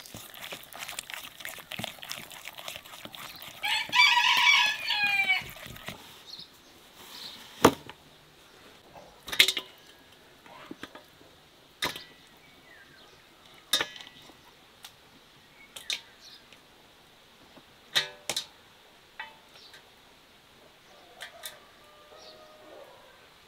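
A rooster crows once, loud, about four seconds in, over dense crackling handling noise. After it come sharp knocks and taps every second or two.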